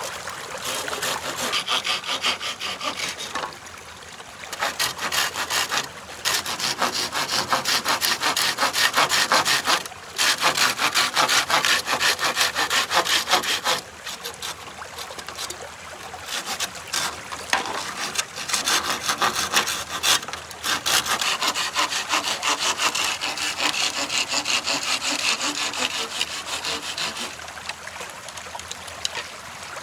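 Hand saw cutting through wood with quick back-and-forth strokes, in several runs broken by short pauses.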